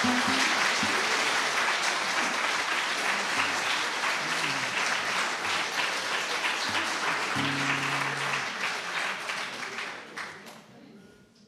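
Audience applauding, a dense patter of many hands that dies away about ten seconds in.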